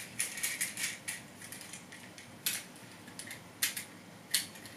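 Plastic pterodactyl toy's jammed wing joints clicking as they are worked by hand. A quick cluster of short clicks and rattles comes in the first second, then single clicks about a second apart.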